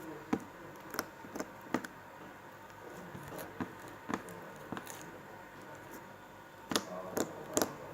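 Slime being squeezed and worked by hand, giving about ten irregular sharp clicks and pops, with several coming close together near the end.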